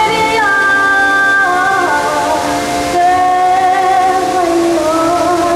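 Music: a woman singing a slow melody of long, wavering held notes over sustained backing chords.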